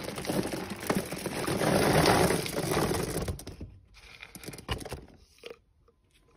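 Plastic dog-food bag crinkling and rustling for about three seconds as dry kibble is scooped out with a cup, then a few faint clicks and rattles.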